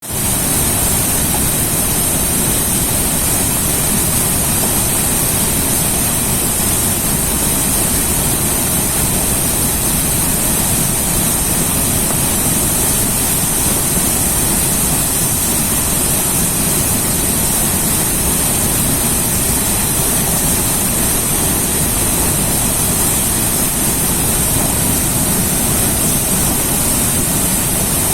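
A river's rushing water with a steady rumbling and a strong hiss, unbroken throughout.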